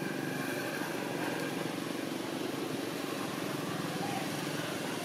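Steady engine drone running without a break, strongest low down, with a fine even pulse.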